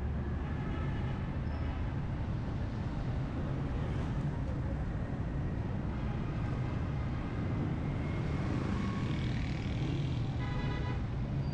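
Motorcycle riding through city traffic: the bike's engine running steadily under wind and road noise. A vehicle horn beeps briefly near the end.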